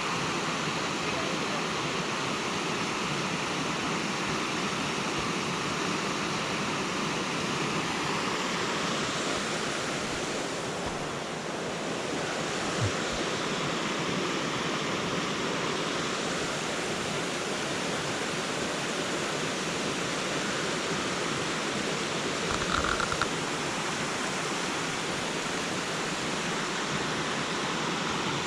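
Steady rushing of a river's flowing water, with two brief soft knocks partway through.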